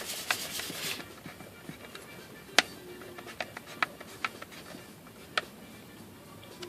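Plastic parts of a car blower motor being handled and fitted together. About a second of rubbing and scraping is followed by scattered sharp clicks and taps as the white plastic piece is pushed onto the new motor.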